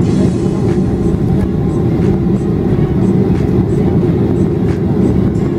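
Boeing 737-500 cabin noise while the aircraft rolls on the ground: a loud, steady rumble of its CFM56 engines and wheels, with a faint regular clicking about three times a second.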